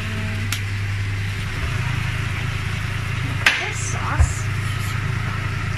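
A steady low hum in a kitchen during stir-frying, with a spatula knocking twice against a nonstick frying pan, about three and a half and four seconds in, the second knock the louder.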